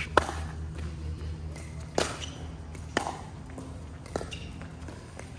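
Pickleball rally: paddles hitting a plastic ball, four sharp pops about a second apart, the first the loudest with a short ping, over a steady low hum.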